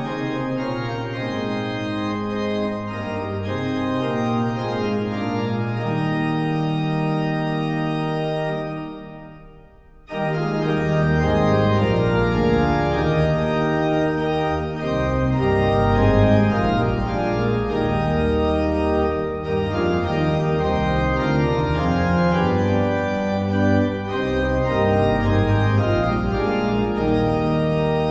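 Organ music of slow, sustained chords. It fades almost away about nine seconds in, then a fuller passage with deep bass notes starts.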